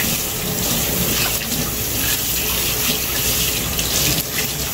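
Kitchen tap running steadily into a sink, with water splashing over a cutting board being washed under it.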